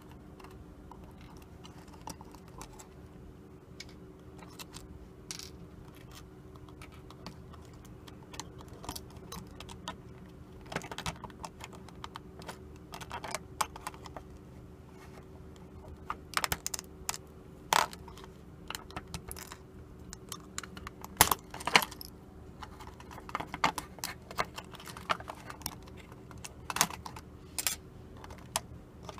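Plastic parts of a battery alarm clock's movement being pried apart and handled: irregular light clicks, taps and small rattles, with the sharpest clicks around the middle.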